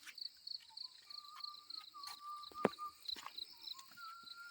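Footsteps on a hill trail, a few scattered knocks, the loudest a little after the middle, over a high chirping that repeats evenly about two to three times a second, with a faint steady tone beneath.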